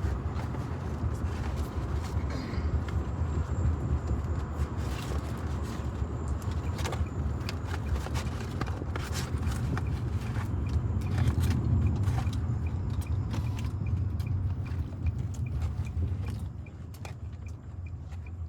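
Steady low rumble of road noise inside a moving car's cabin, with scattered short clicks and taps over it. The rumble drops in level near the end.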